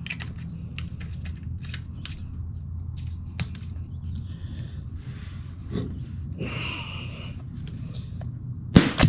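Small clicks of a rifle scope's turret being turned by hand, over a steady high insect drone and a low hum. Near the end, one sharp gunshot.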